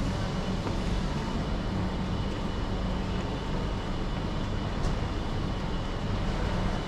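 Steady low rumble and hiss of a large indoor market hall's background noise, with faint steady hums, and a faint click about five seconds in.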